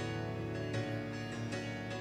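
Instrumental music: a keyboard holding chords with a few new notes struck, the introduction to a congregational worship song.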